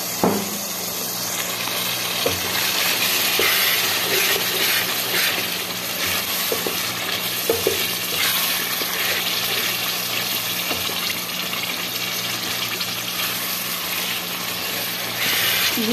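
Minced meat and potato chunks sizzling in a pot with a little added water, stirred with a wooden spoon, with a few knocks of the spoon against the pot.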